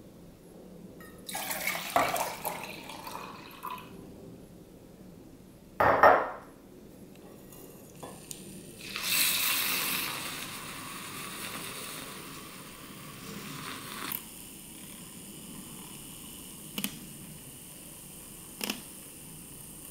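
Milk poured from a glass into a stainless steel pitcher, then a sharp knock. A handheld battery milk frother starts whirring in the milk about nine seconds in, loudest at first and running more quietly from about five seconds later, with two light ticks near the end.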